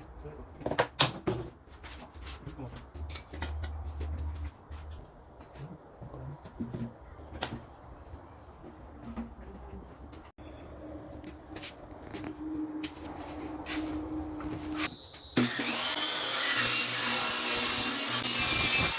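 Workshop sounds of wood being worked: scattered knocks and handling, then a power tool starts about three quarters of the way in and runs loudly on wood to the end. A steady high buzz, like insects, runs under it all.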